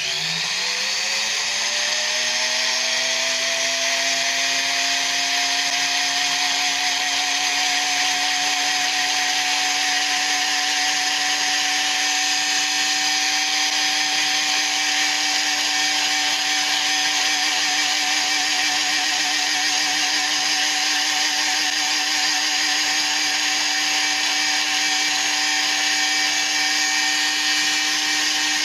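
Small handheld rotary tool with a felt polishing bit, spinning a quartz egg polish with 50,000-grit diamond powder. The motor comes up to speed just as it starts, its pitch rising over the first couple of seconds, then runs at a steady high whine.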